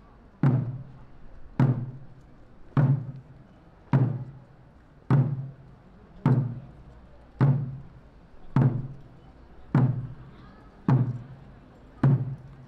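Large barrel drum struck at a slow, even march pace, about one beat every second, eleven beats in all, each a sharp hit with a low ring that fades before the next. It keeps time for the guards' ceremonial procession.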